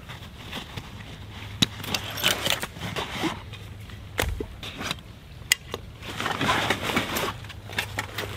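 Gear being unpacked from a canvas backpack: rustling of the pack's fabric and straps, sharp clicks of its buckles, and a dull knock about four seconds in as a hatchet is set down on the log.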